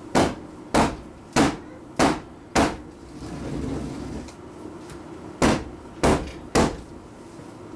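Soap mold full of freshly swirled cold process soap batter being tapped down on a table: five sharp knocks about two a second, a pause of a couple of seconds, then three more.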